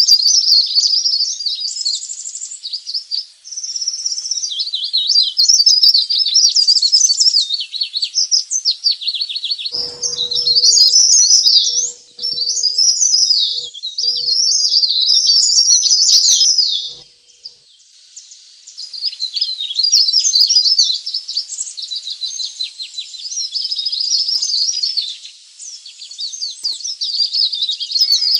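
Cikrak daun (leaf warbler) lure song: phrase after phrase of rapid, high-pitched chattering and trills, with a short pause a little past the middle. Through the middle stretch a faint low hum sits under the song.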